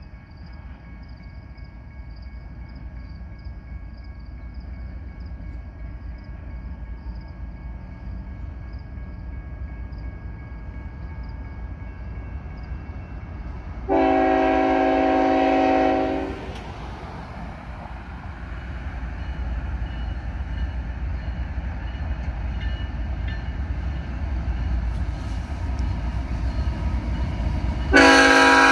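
Union Pacific GE C45AH-T4 locomotive approaching with a low rumble that grows steadily louder. Its multi-tone horn sounds one blast of about two seconds halfway through, and a second blast starts just before the end.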